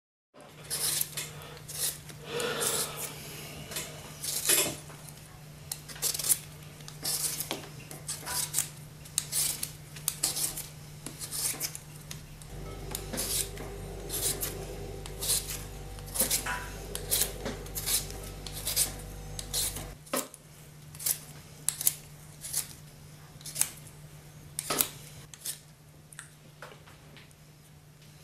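Small kitchen knife peeling a raw potato by hand: a run of short, crisp scraping strokes, irregular at about one or two a second, as strips of peel are shaved off. A low steady hum sits underneath throughout.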